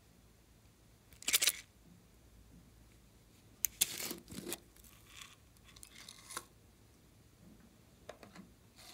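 Hard plastic pineapple-shaped slime container being handled: a series of short rubs, scrapes and clicks of plastic under the fingers, the loudest a little over a second in and around four seconds in.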